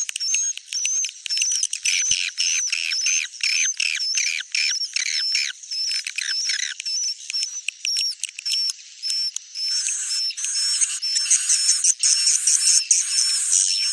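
Swiftlets twittering in rapid, high, chirping trills. The chatter turns denser and louder about two-thirds of the way through.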